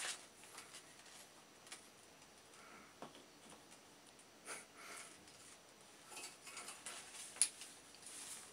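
A ferret moving about in a wire mail basket on a door: faint, scattered rustling of newspaper and light metallic clinks of the wire rack, with one sharp click about seven seconds in as the loudest sound.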